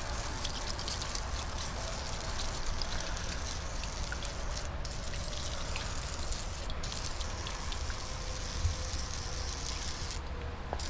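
Aerosol can of heavy-duty engine degreaser spraying onto a dirty engine in a steady hiss, with short breaks about five and seven seconds in and a stop near the end.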